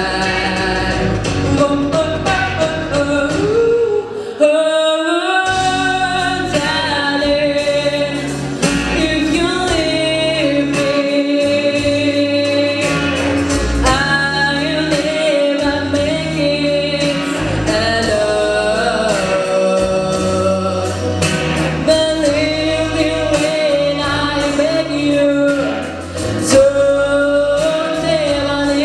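A solo singer performing a song over instrumental accompaniment with a steady beat.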